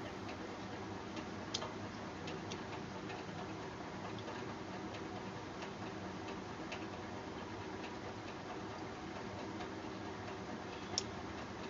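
Faint, irregular small clicks over a steady low hiss, the clearest a little after a second in and again near the end.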